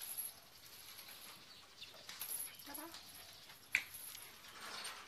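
German Shepherd moving about on a concrete floor: faint scuffling with scattered clicks, a short low sound a little past halfway, and one sharp click near the end.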